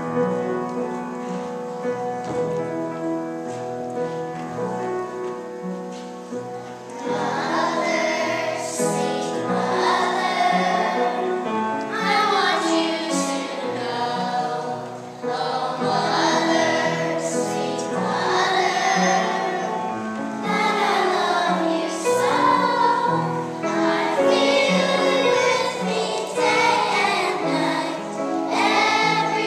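A piano plays alone for the first several seconds. About seven seconds in, a choir of young children starts singing in unison, and the piano keeps accompanying them.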